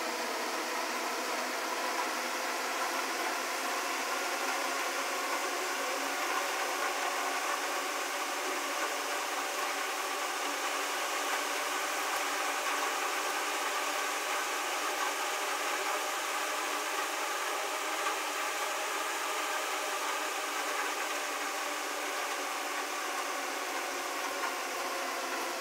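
Rain falling, a steady, even wash of noise with no breaks.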